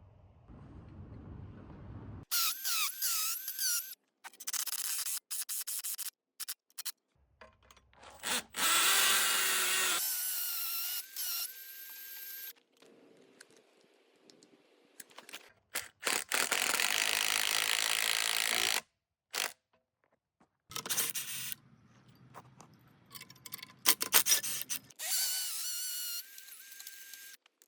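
A power drill running in several short bursts, its motor whine rising and falling as the trigger is worked, with abrupt cuts between them. Typical of fastening hardware for a gate opener mount.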